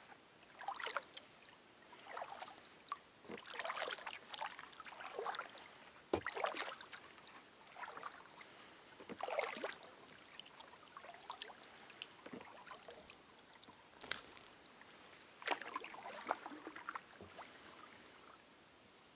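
Kayak paddle strokes in calm water: soft splashes and drips that come every second or two, a few of them louder.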